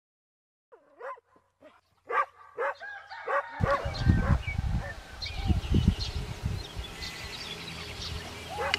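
A dog barking repeatedly in short calls about twice a second. About three and a half seconds in, a louder outdoor background with a low rumble comes in under the barking, with small high chirps above it.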